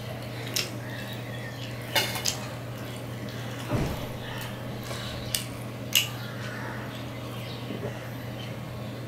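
A person eating by hand from steel dishware: several short sharp clicks and clinks of lips smacking and steel plate and tumbler being touched, over a steady low hum.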